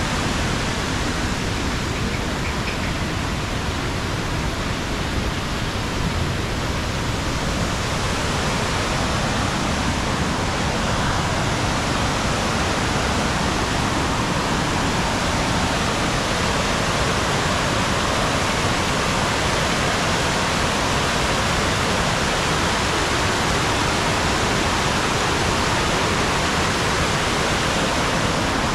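Waterfall: a steady, even rush of falling water that turns a little hissier from about ten seconds in.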